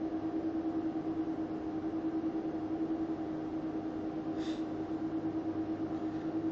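Steady background hum with a constant mid-pitched tone and a slight regular pulsing, and one short click about four and a half seconds in.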